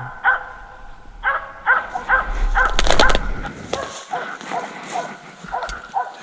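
A hunting dog barking steadily at a treed capercaillie, about two barks a second with a short break near the start. A burst of rustling and knocks comes midway.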